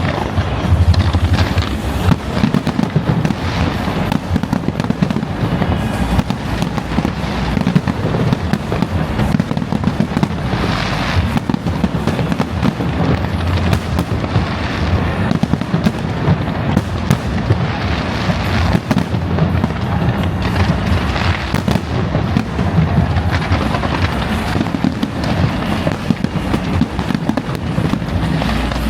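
Fireworks display going off in a dense, continuous barrage: rapid overlapping booms and crackling bursts with no pause.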